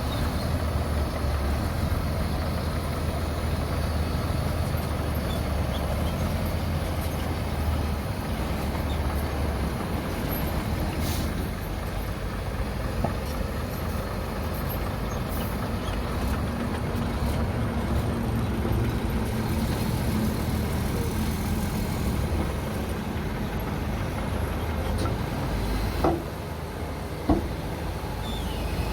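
Heavy diesel engine of earthmoving machinery running steadily under load, with two short metallic knocks near the end.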